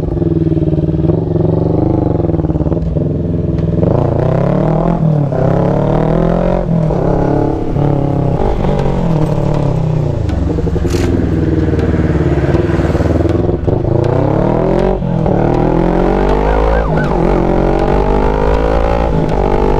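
CFMOTO NK400's parallel-twin engine running under way, its pitch climbing and then dropping again and again as the bike accelerates through the gears and shifts.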